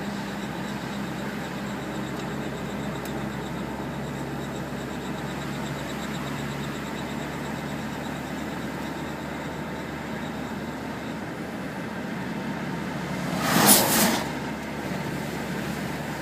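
Audi A4 1.8T driving: steady road noise with a low drone, which the owner suspects is a bad front wheel bearing. About thirteen and a half seconds in, a loud burst of noise lasting about a second.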